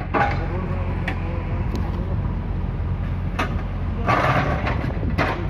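Backhoe loader's diesel engine running steadily, with several sharp knocks and a brief clatter about four seconds in as its bucket works among the broken rocks.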